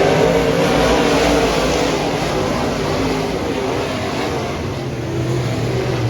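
Dirt modified race car engines running hard at racing speed, their pitch wavering with the throttle.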